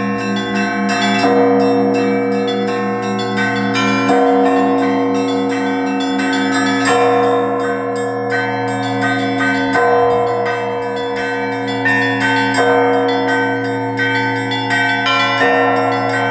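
Russian Orthodox church bell ringing (zvon): a large bass bell is struck about every three seconds, its low hum sounding on beneath, while smaller treble bells ring in quick rhythmic patterns over it.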